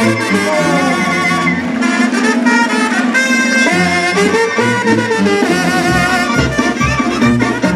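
Mexican banda music: a brass band playing, with a low bass line moving in steps beneath the horns.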